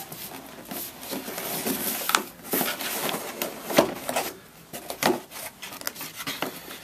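Cardboard packaging and paper inserts being handled: irregular rubbing and rustling with scattered light knocks, the sharpest about four seconds in.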